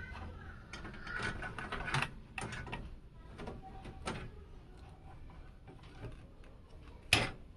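Hand-handling noise inside a PC case: cables and cooler tubing rustling and knocking against the case and motherboard, with scattered irregular clicks and one sharp click near the end.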